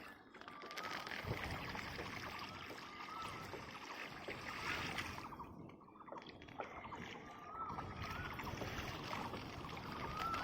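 Pressurised water gushing and splashing from the end of a loose, moving pipe, a steady rushing noise that briefly drops about halfway through.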